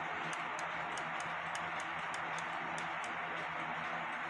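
Bouncing-girl cuckoo clock's verge movement, driven by its coiled-spring pendulum, ticking with light, sharp ticks several times a second. The spring lever is still not quite adjusted properly, so the clock is not yet in beat.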